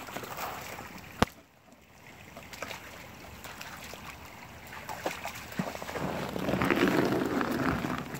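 Crunching and rustling of footsteps on snow and frozen leaves, loudest near the end, with a single sharp click about a second in.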